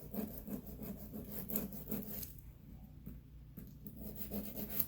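Nail file rasping back and forth across an artificial nail tip in short, quick strokes, shaping it. The strokes pause briefly a little past the middle, then resume.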